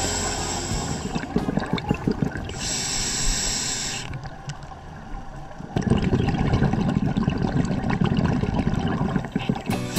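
Scuba diver breathing through a regulator underwater: hissing inhalations in the first few seconds, a short lull, then a long rumble of exhaled bubbles.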